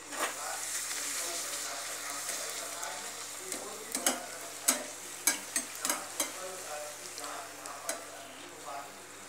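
A pani puri of dough sizzles as it fries in hot oil in a small pan, the hiss loudest just after it goes in. From about three and a half seconds in, a perforated metal slotted spoon clinks sharply against the pan several times as the puri is pressed and turned.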